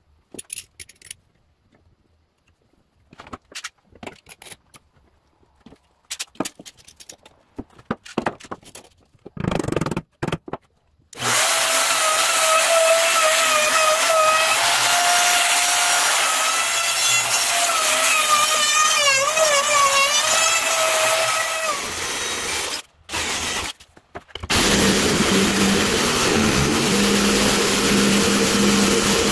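Scattered clicks and knocks of bar clamps being handled on a glued wooden box, then a compact trim router starts about eleven seconds in and runs through the wood with a high whine that wavers under load. After a short break, a corded jigsaw takes over for the last five seconds, cutting into the box's wooden top.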